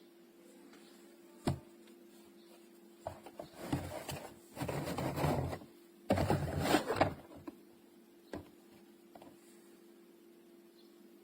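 Puzzle sorting trays being handled: a sharp click, then a few seconds of rubbing and clattering, then another click, over a faint steady hum.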